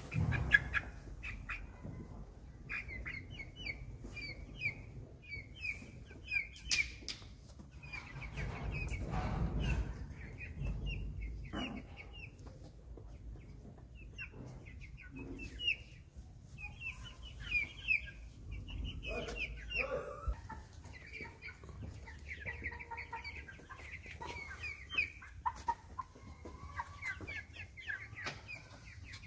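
A flock of chickens clucking, with many short, high calls repeated throughout.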